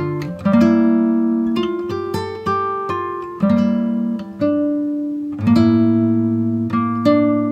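Acoustic guitar music: notes and chords plucked one after another, each left to ring and fade before the next.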